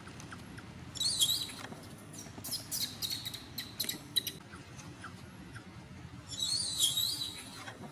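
Baby macaque crying with high, wavering screeches, begging to nurse from its mother. There are two longer bouts, about a second in and near the end, and a run of short squeals between them.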